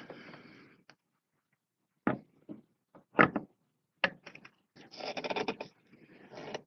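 Handling knocks as an Omegon Pro Astrograph 150/420 telescope tube is lifted onto the mount: a few separate clunks, the sharpest about three seconds in, then about a second of rubbing and scraping as it is seated.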